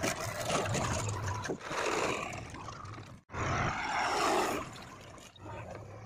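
Diesel engines of farm and earthmoving machines running under load, heard in short cuts: a Swaraj 744 FE tractor, then a JCB 3DX backhoe loader. The sound breaks off abruptly about three seconds in and again near the end.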